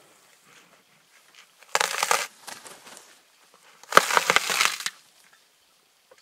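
Male lion crunching on a buffalo carcass. There are two loud bouts of crunching: a short one about two seconds in and a longer one about four seconds in.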